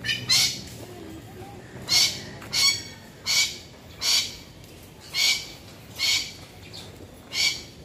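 A white cockatoo screeching: about nine short, harsh squawks, roughly one a second.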